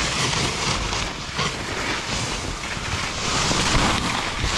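Steady hiss of snow scraping under sliding snowboard edges on a slow downhill run, with wind rushing over the microphone.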